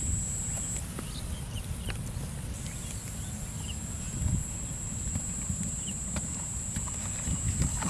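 Open-field ambience: a steady low rumble, a constant high-pitched whine that drops out for a couple of seconds near the start, scattered faint short chirps and a few soft knocks.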